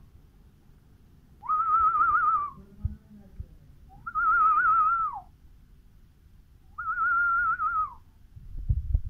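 A person whistling three warbling notes, each about a second long with a quickly quivering pitch that drops off at the end, with quiet gaps between them.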